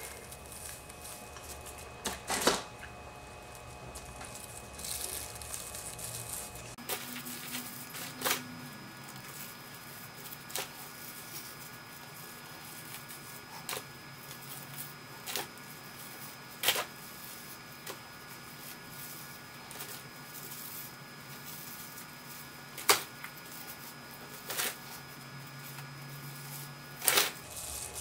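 Velcro hair rollers being unwound and taken out of short hair: quiet rustling of hair and rollers with about ten sharp clicks and taps at irregular intervals, over a faint steady hum.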